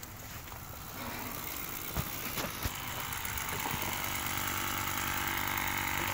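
A diesel pickup engine idling steadily, growing a little louder after about a second, with a few light clicks over it.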